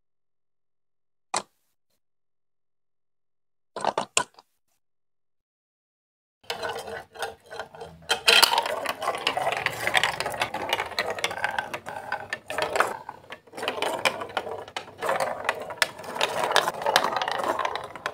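A few sharp clicks of plastic building blocks, once about a second and a half in and a quick cluster around four seconds. Then from about six seconds a plastic marble rolls and rattles along chunky plastic Duplo marble-run chutes, with many small knocks as it drops between pieces. The rattling runs on almost to the end.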